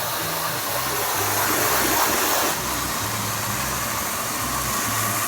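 Wet vacuum cleaner (hoover) running steadily at full suction, drawing glycol out of the heat-pump pipework. Its motor makes a loud, even rushing noise.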